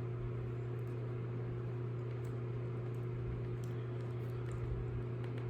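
Steady low room hum from a running machine, with a few faint light ticks and rustles of small wires being handled.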